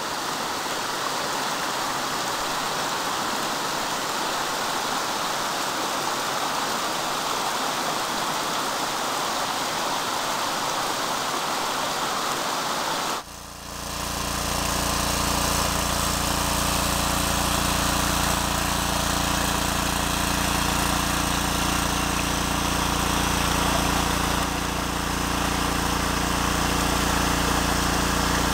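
A small creek running over rocks, then, after an abrupt cut about halfway through, a small engine-driven water pump running steadily at one speed, pumping creek water to a highbanker sluice.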